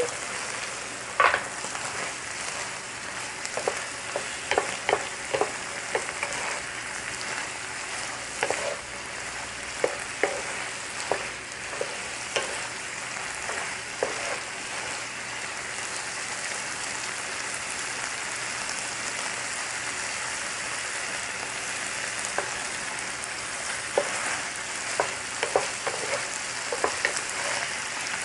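Shrimp sizzling in a reducing coconut-water and honey sauce in a nonstick frying pan, with a wooden spatula knocking and scraping against the pan as they are stirred. The spatula clatters come in clusters through the first half and again near the end, with a stretch of plain, steady sizzling between.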